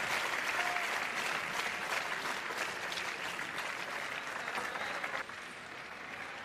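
Arena crowd applauding with dense clapping that thins out and dies down about five seconds in.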